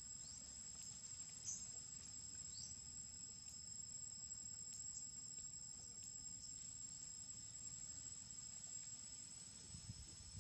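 Insects trilling in a steady, high, continuous tone, with a few brief rising chirps over it.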